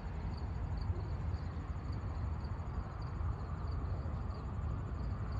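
Outdoor ambience: a steady low rumble like wind on the microphone, with faint high insect chirping repeating about twice a second.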